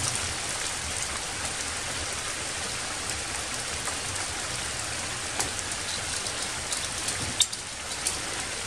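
Steady rain falling, a constant hiss with a few sharper drop sounds in the second half.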